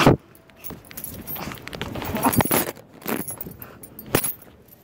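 A metal chain necklace jingling and clinking as it is handled, in irregular bursts, with clothing rustling against the phone's microphone.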